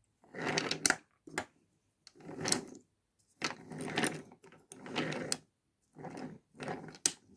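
Wooden toy train engines pushed by hand along wooden track, their wheels rattling over the rails in about six short runs with brief pauses between, and a few sharp clicks as they cross track joints.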